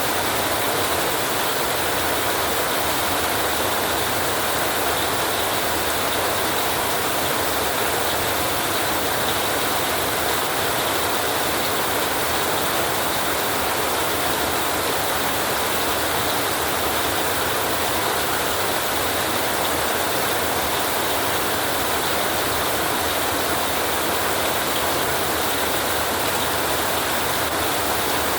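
Heavy rain falling on a tin roof, a steady, even hiss with no thunder.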